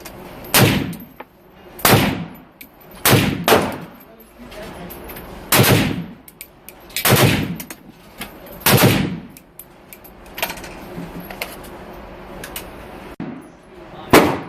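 Suppressed shots from a PWS Diablo rifle in 7.62x39, fired one at a time at uneven intervals, about eight in all, two of them in quick succession about three seconds in, then a pause of several seconds before one more near the end.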